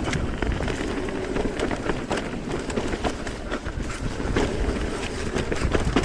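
Mountain bike riding down a rough dirt trail: tyres rumbling over the ground with frequent small clatters and knocks from the bike, and wind rushing over the microphone.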